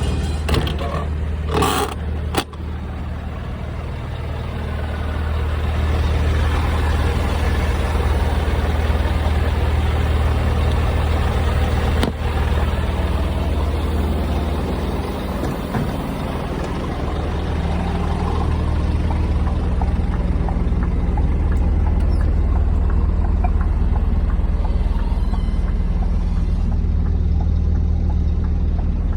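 Scania G490 truck's diesel engine running with a steady low drone, a few knocks or clatters in the first couple of seconds.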